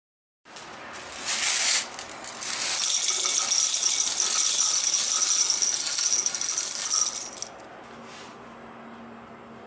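Dried blueberries poured into the stainless-steel grinding bowl of a tabletop high-speed mill, rattling against the steel. The rattle starts about half a second in, swells, and stops about seven and a half seconds in.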